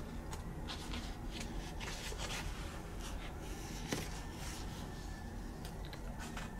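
Pages of a glossy paper magazine rustling as it is opened and handled, with a sharp tap about four seconds in, over a low steady hum.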